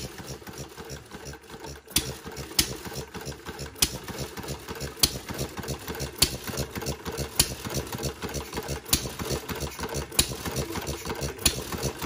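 Scale-model Fuller & Johnson hit-and-miss gas engine running. Its moving parts make a fast, light clatter throughout. From about two seconds in, a sharp pop comes every second and a quarter or so, nine in all: the engine firing, then coasting on its flywheels between firings.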